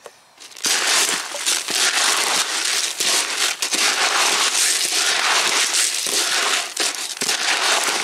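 Small hard fishing pellets being shaken and stirred in a bucket, a dense continuous rattling rustle that starts about half a second in, as they are mixed with liquid glug to coat them.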